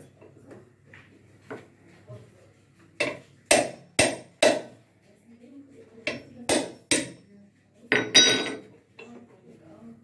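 Sharp metallic knocks and clinks of a steel socket wrench on the 17 mm centre nut of an LG direct-drive washing machine motor's rotor, as the nut is being loosened. Four strikes about half a second apart, then three more, then a louder ringing clatter about eight seconds in.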